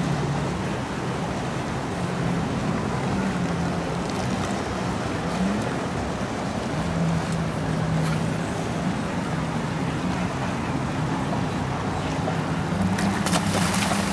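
A steady low engine hum that wavers in pitch, with water noise; about thirteen seconds in, a splashing burst as a large hooked fish thrashes at the surface beside the boat.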